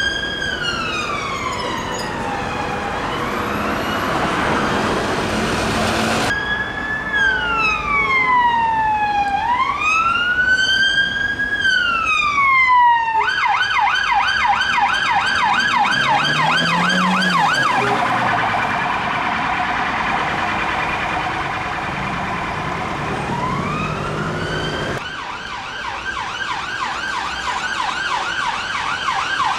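Electronic sirens of London police cars and an ambulance on emergency runs. They sound in a slow rising-and-falling wail, switch to a fast yelp of about four to five cycles a second about halfway through, and after a cut near the end a wail rises into a yelp again.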